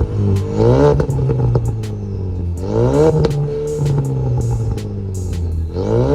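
Ford Mustang EcoBoost's turbocharged four-cylinder, breathing through an MBRP aftermarket exhaust, revved in quick blips about four times and dropping back to a steady idle between them.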